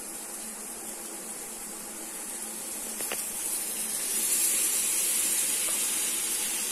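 Water poured into a hot pan of frying vegetables, hissing and sizzling into steam; the hiss grows louder about three to four seconds in.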